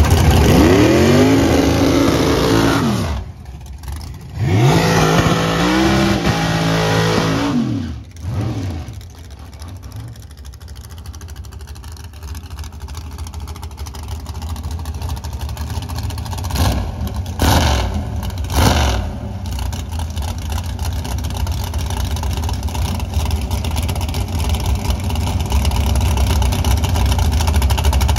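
Dragster engines: a car accelerating hard down the strip in two rising sweeps over the first eight seconds, then a supercharged dragster engine idling at the start line with three sharp throttle blips about two-thirds of the way in, its note slowly growing louder.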